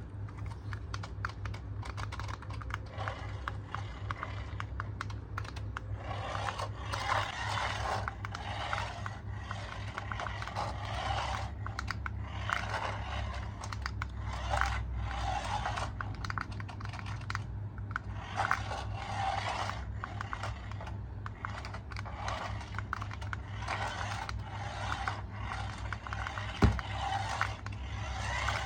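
Rapid irregular clicking and scraping, like small hard objects being handled, in repeated bursts over a low steady hum.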